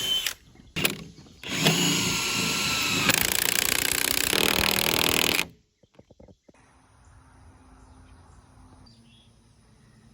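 A handheld power tool runs in bursts on the rafter framing: a brief start, a short blip about a second in, then a steady run of nearly four seconds that stops abruptly. After that, faint outdoor quiet with a few soft bird chirps.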